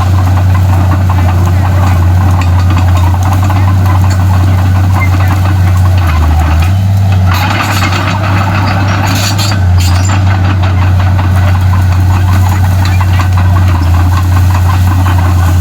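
Komatsu D31P bulldozer's diesel engine running loud and steady, its note dipping and recovering a few times as it works. A rush of hiss-like noise joins it about seven seconds in for a couple of seconds.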